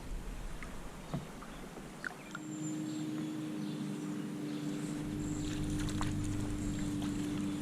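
A few faint clicks, then from about two seconds in a motor starts droning steadily at one pitch and keeps going.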